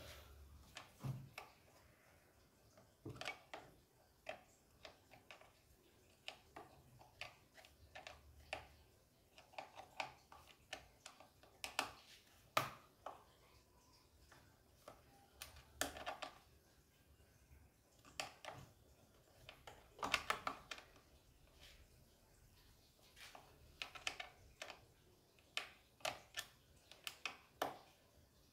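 Faint, irregular clicks and light knocks of hands handling and fitting plastic and metal parts on a chainsaw during assembly, with a quick cluster of clicks about two-thirds of the way through.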